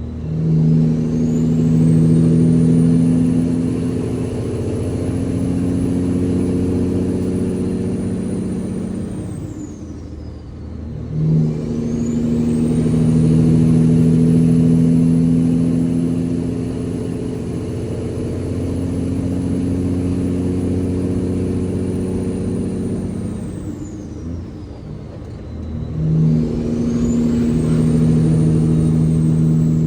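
Diesel semi truck engine pulling a heavy excavator load, with a high turbo whistle that rises, holds and falls. The engine note and whistle drop away briefly twice, about ten and about twenty-five seconds in, then build again.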